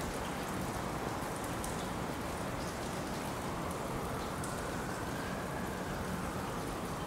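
Steady hiss of rain, with a faint low hum underneath from the approaching PKP Cargo ET22 electric locomotive.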